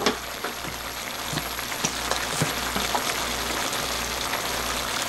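Chicken pieces in a spicy red sauce sizzling in a shallow pan on the heat, an even hiss with scattered small pops.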